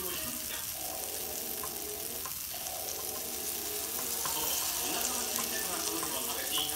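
Okonomiyaki batter sizzling steadily on a hot electric griddle while more batter is ladled on and spread.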